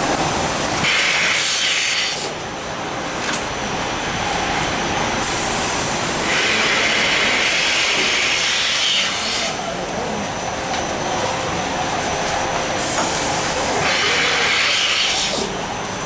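Rotary milking parlour: air hissing into the vacuum teat cups of an EzyCups milking cluster as they are put on a cow's teats. It comes in three bursts of one to three seconds, over steady parlour machinery noise.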